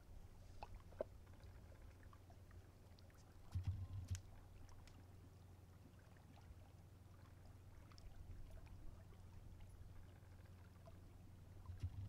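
Faint small waves lapping against the shore, with scattered little splashes and one louder low surge about four seconds in.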